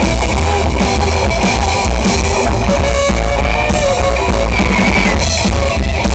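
Live rockabilly band playing: electric guitar over upright double bass and a drum kit, loud and steady.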